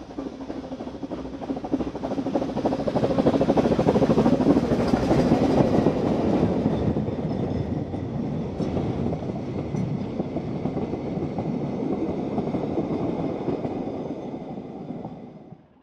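An 1867 George England 0-4-0 saddle-tank steam locomotive passes under steam, loudest about four to five seconds in. Its train of narrow-gauge carriages then rolls steadily by on the track, and the sound drops away suddenly just before the end.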